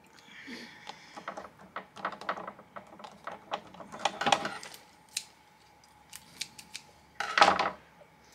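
Small craft items being handled and set down on a hard cutting mat: a run of quick light clicks and rattles, with a louder, denser rattle about seven seconds in.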